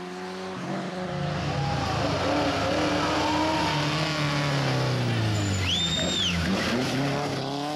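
Rally car engine at high revs, its pitch rising and falling as the driver accelerates and lifts off through a corner. About six seconds in, the tyres give a brief high squeal.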